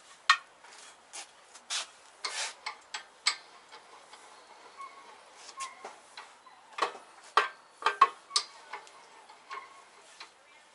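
Irregular metallic clinks, taps and knocks as a steel control arm, its new bushing and metal insert, and hand tools are handled and knocked against each other and a vise.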